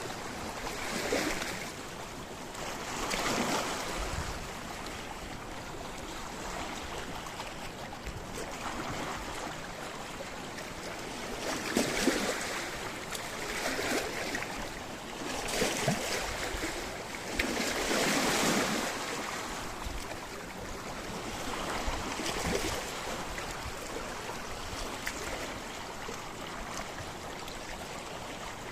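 Small sea waves washing and splashing against rocks, in irregular surges every few seconds over a steady wash, with a few louder splashes midway.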